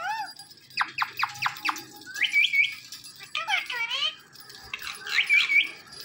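Indian ringneck parrot calling: a quick run of sharp chirps about a second in, then rising whistled calls and warbling, speech-like chatter, with the same whistled call coming twice.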